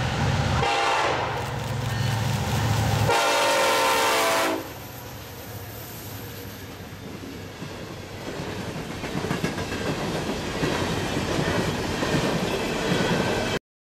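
A diesel freight train's locomotive horn sounds twice, a short blast about a second in and a longer one around three to four seconds in, over the low running of the passing locomotives. Then coal hopper cars roll by with wheels clacking over the rail joints, growing louder, until the sound cuts off suddenly near the end.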